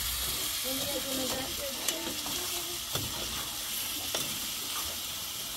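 Diced potatoes sizzling as they fry in a steel pot on a gas burner, stirred with a metal spatula that scrapes and taps against the pot a few times.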